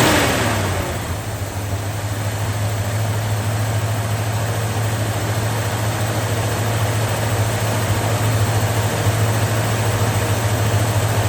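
Engine idling steadily with a strong low, even hum. At the start it settles down from a higher speed.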